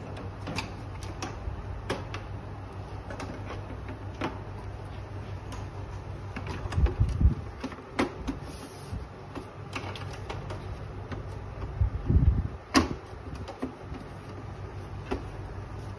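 Plastic side panel of a dehumidifier being handled and fitted back onto the unit's frame: scattered light clicks and knocks, with heavier thumps about seven and twelve seconds in and a sharp click just before thirteen seconds as the panel seats.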